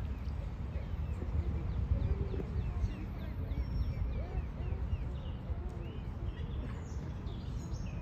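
Small birds chirping repeatedly in quick short calls over a steady low rumble.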